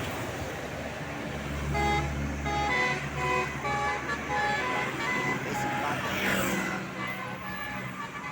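Tour bus telolet horn sounding a string of short notes at changing pitches, like a little tune, over the low rumble of a bus engine that swells between about one and a half and three seconds in.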